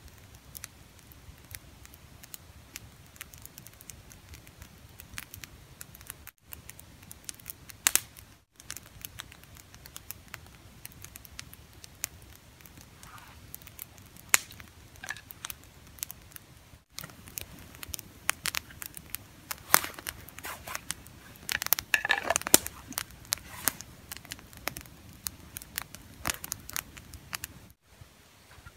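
Close-up handling sounds as cord is wrapped and knotted around two short split logs: small clicks, scrapes and rustles of cord, hands and clothing, with a louder run of scraping and clicking late on.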